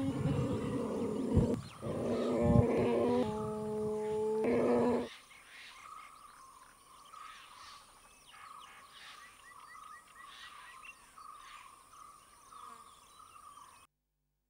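Asian elephants calling loudly for about five seconds, deep pitched calls with one held steady tone near the end of the calling. Then it drops to faint open-country ambience with a few bird chirps, and cuts to silence just before the end.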